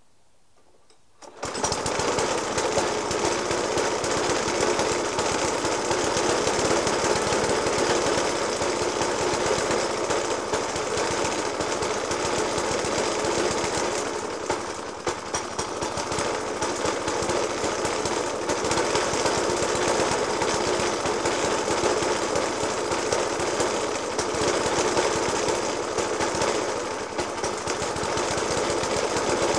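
Suffolk Punch 30S petrol lawnmower engine, running a Dellorto FCH 20 carburettor, cuts in abruptly after a second or so and then idles roughly with heavy banging. The rough idle persists despite a new spark plug, a decoke and a carburettor clean.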